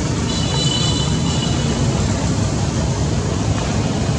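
Steady, loud rumbling background noise, like engine or traffic noise, with a brief high whine that starts just after the beginning and lasts about a second.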